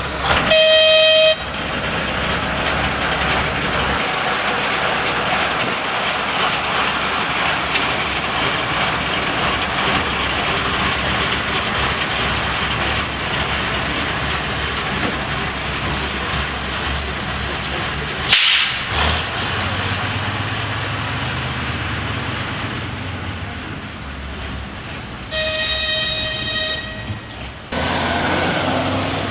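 Narrow-gauge diesel locomotive horn sounding a short blast about half a second in and a longer one near the end, over the steady running of the diesel engine. A brief sharp click comes about two-thirds of the way through.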